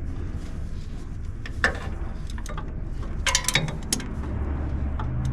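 A few scattered sharp clicks and clinks of a socket and ratchet against metal, with a cluster of them near the middle, while reaching for a starter bolt under a truck, over a steady low rumble.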